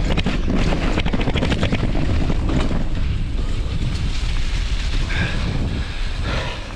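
Wind buffeting the microphone with a loud, steady low rumble, over dense crackling and clicking that thins out after about three seconds.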